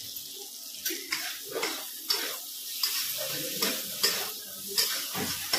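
A steel spatula stirring and scraping peas, onion and tomato as they fry and sizzle in a steel kadhai, with sharp scrapes against the pan about once or twice a second.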